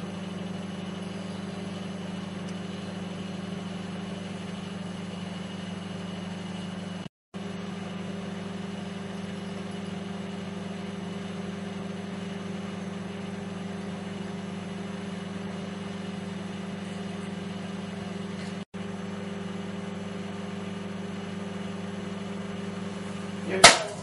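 Microwave oven running: a steady low mains hum from its transformer and fan. A single sharp crack comes just before the end.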